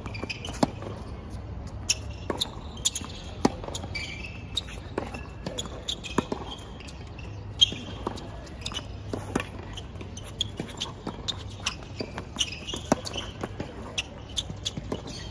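Tennis balls being struck by rackets and bouncing on the court: many sharp, irregular knocks over a steady low background noise.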